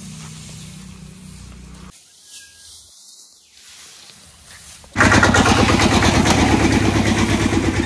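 Engine of a two-wheel tractor (power tiller) running, driven over spread rice straw; it comes in suddenly and loud about five seconds in, with a fast, even pulse. Before that there is a faint low hum and a quieter stretch.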